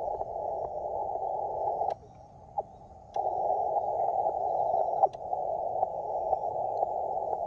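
Amateur radio transceiver's speaker giving a steady, muffled hiss of shortwave static, with no station coming through. The hiss cuts out for about a second around two seconds in, and a few small clicks sound over it.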